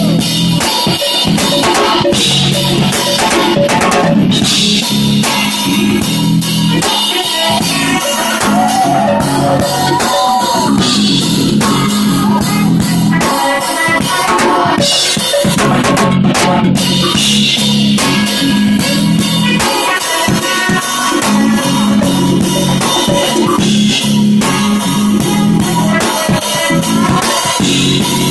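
Jazz-fusion band playing live: a drum kit with snare and bass drum driving a busy groove under keyboards, loud and continuous.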